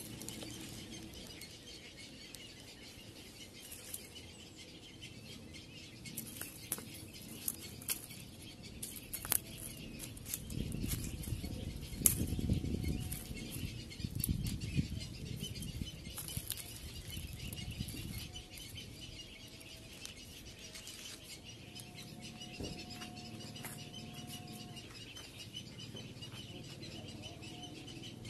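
Outdoor ambience of birds chirping, with scattered short high chirps over a steady high background hum. A low rumble rises in the middle and fades after a few seconds.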